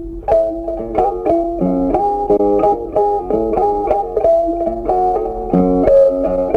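Background music: a guitar plucking a steady melody of short notes, each note fading after it is struck.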